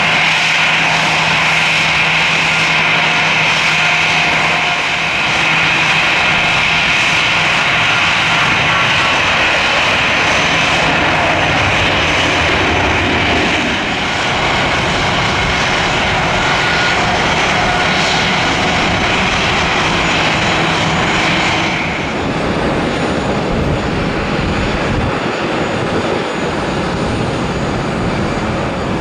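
Airbus A320 jet engines running at low power: a steady high whine over a broad rumble. About three quarters of the way through the whine drops away abruptly, leaving a lower, rougher engine noise.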